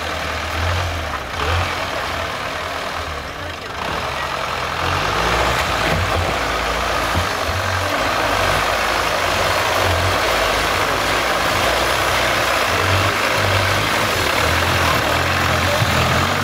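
Engine of a modified off-road 4x4 running at low speed as the vehicle crawls over a tyre track and up a sandy bank. Its note rises and falls with the throttle, and it grows louder from about four seconds in as the vehicle comes closer.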